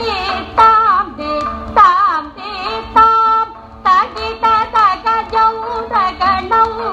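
Carnatic-style music: a melody line with quick sliding, wavering ornaments on its notes.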